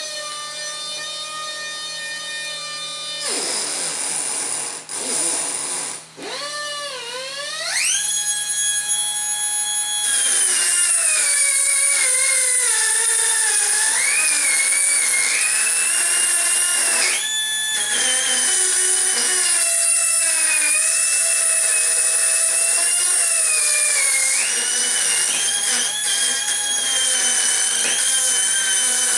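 Pneumatic right angle micro die grinder (Jet JAT-411) running at high speed with a strong whine. It stops after about three seconds and spins back up a few seconds later, and from there its pitch dips and wanders as a ball nose end mill cuts into aluminum.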